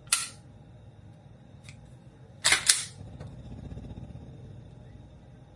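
Glock 19 Gen 5 pistol dry-fired: a sharp click of the trigger breaking right at the start. About two and a half seconds in come two loud clacks close together, typical of the slide being racked to reset the trigger. This is the stock trigger pull before a 3.5 lb connector goes in.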